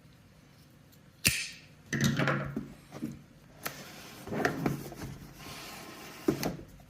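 A product box and its packaging being opened and handled: a sharp click about a second in, then irregular knocks and rustling, a short sliding rustle, and another knock near the end.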